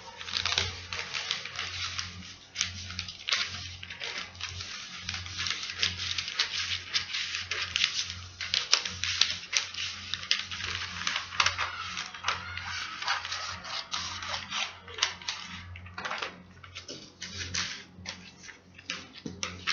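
Scissors cutting through pattern paper: rapid crisp snips of the blades with the paper rustling and crinkling, broken by a few short pauses.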